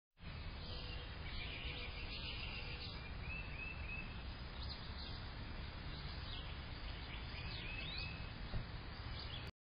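Faint bird chirps and calls over a steady background hiss, with two quick runs of short arched notes, one about three seconds in and one near the end.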